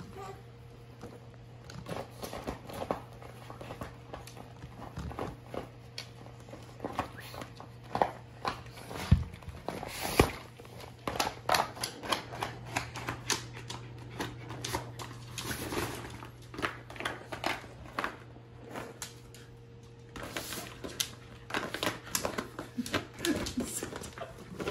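A West Highland white terrier's paws, claws and nose working at an inflatable vinyl water play mat: irregular crinkles, taps and scrapes of the plastic, over a steady low hum.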